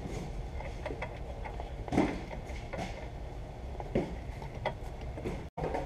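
Scattered light metallic clicks and taps as a South Bend dual-disc clutch pressure plate is handled and fitted against the flywheel, over a steady low hum. The sound drops out for an instant near the end.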